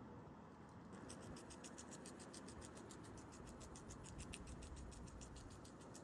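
Faint, rapid, even ticking, about nine ticks a second, starting about a second in, over low room noise.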